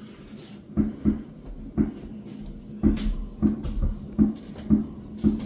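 Fireworks going off, heard muffled through window glass: about ten dull low booms at uneven spacing, some close together. A steady low hum runs underneath.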